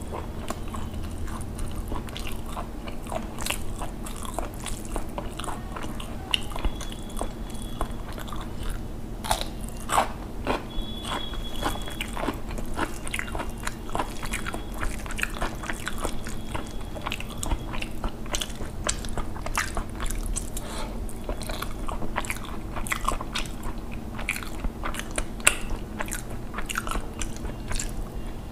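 Close-miked chewing of rice and fish curry eaten by hand, with many small, sharp mouth clicks throughout.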